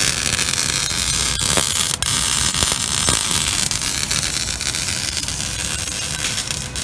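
Maserati Quattroporte exhaust running through straight pipes with the mufflers deleted, heard right at the tips: a loud, steady rush of exhaust over a low rumble.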